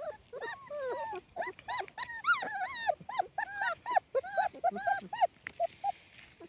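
Young puppies whimpering: a rapid run of short, high-pitched, rising-and-falling cries, several overlapping at once, dying away about five seconds in.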